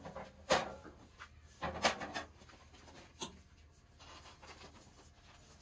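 Charcoal being handled in a metal chimney starter: light scraping, with three sharp knocks spread over the first three seconds.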